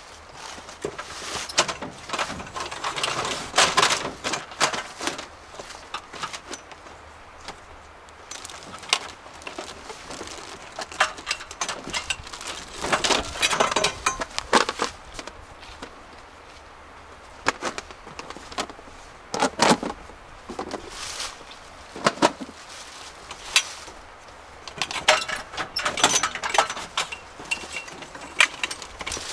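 Irregular clicks, knocks and rustling of things being handled, coming in bursts with quieter pauses between, the sharpest knock a little before the two-thirds mark.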